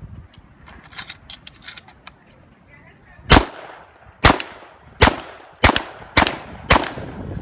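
Shotgun fired six times in quick succession, about one shot every half second to second, during a timed competition stage. A short high ring follows two of the shots.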